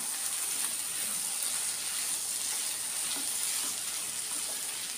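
Prawn fry with capsicum and onion sizzling in a nonstick pan as a wooden spatula stirs it, a steady hiss with faint scattered scrapes and ticks. The fry is in its last moments of cooking, nearly done.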